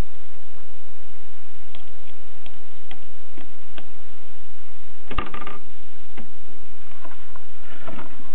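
Rheinmetall manual typewriter clicking: a few single strikes about half a second apart, then a dense rapid clatter about five seconds in and another burst of quick clicks near the end.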